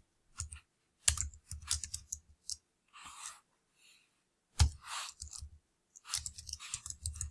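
Computer keyboard being typed on: quick runs of key clicks, each with a soft thud, about a second in and again near the end. One louder single key strike comes a little past halfway, and a couple of soft hissy noises fall between the runs.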